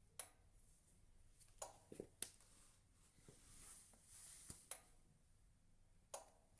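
Relay inside a PHX-1000GE 1000 W electric radiator clacking at uneven intervals: about seven short sharp clicks, some in quick succession. This is the relay chattering at start-up, the fault that keeps the radiator from heating.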